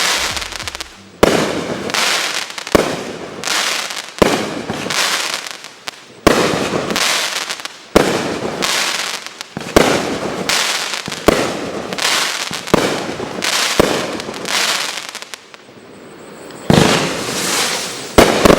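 Echo Box 25-shot XL aerial cake firing: a loud boom about every second and a half, each break trailing off into crackle. There is a short lull near the end before the last two shots.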